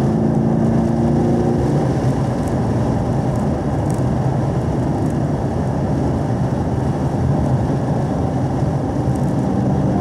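2017 Camaro SS 1LE's 6.2-litre V8 running steadily at about 3,000 rpm in fourth gear, heard from inside the cabin along with road and tyre noise. Its steady drone turns rougher and noisier about two seconds in.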